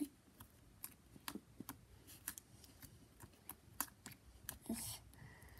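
Slime being handled: faint, irregular sticky clicks and pops, with a slightly longer crackle near the end.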